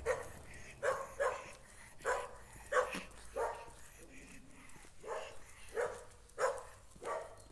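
A dog barking repeatedly at another dog: about ten short, sharp barks, several of them in quick pairs.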